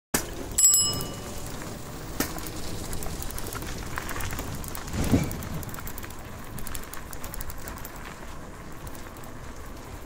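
Bicycle rolling along a street: steady road noise with scattered rattling clicks, and a brief metallic ringing tone under a second in.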